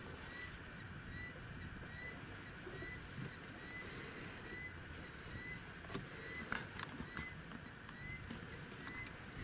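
A bird calling monotonously: a short, slightly rising note repeated evenly about twice a second. A few sharp clicks come about two-thirds of the way through.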